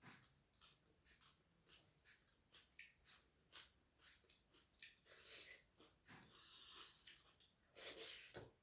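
Faint close-up chewing: a person eating rice and curry with many small wet mouth clicks and lip smacks, broken by a few breaths.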